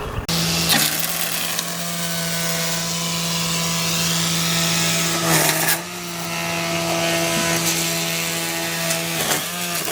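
String trimmer running at a steady high speed while cutting grass, its pitch dipping briefly about halfway through and again near the end.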